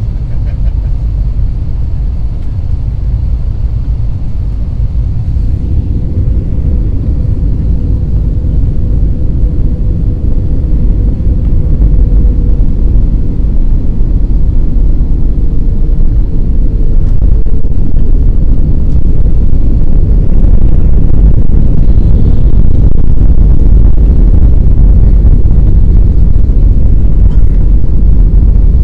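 Airbus A320 passenger cabin noise through the landing: a heavy, steady low rumble that grows louder, stepping up about a third and two-thirds of the way through as the jet touches down and rolls out on the runway with its spoilers raised.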